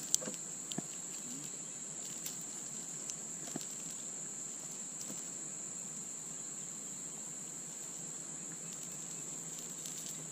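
Insects droning in one steady high-pitched hum, with a few faint clicks and taps in the first few seconds.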